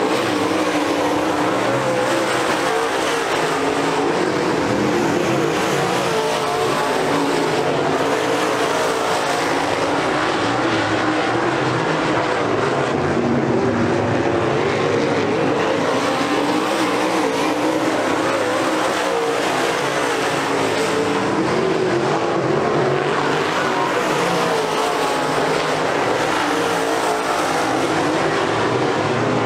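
A field of UMP dirt modified race cars racing around a dirt oval, several V8 engines running hard together at high revs, their notes wavering up and down as they pass through the turns and down the straights.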